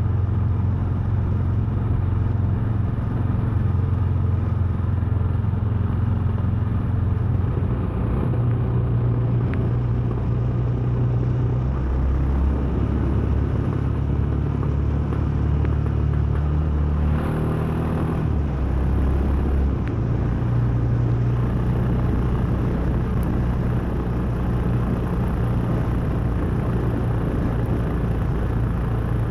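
Royal Enfield Himalayan's 411 cc air-cooled single-cylinder engine running under way. The engine note holds steady for long stretches and changes pitch a few times, with an abrupt shift a little past halfway.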